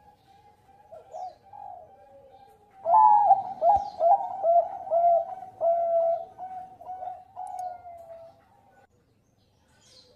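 Zebra dove of the Bangkok perkutut type singing: faint cooing at first, then a loud run of quick, rolling coo notes from about three seconds in that stops a little over a second before the end.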